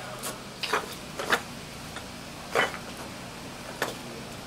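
A handful of short, irregular clicks and knocks, about six in four seconds, over a faint steady low hum.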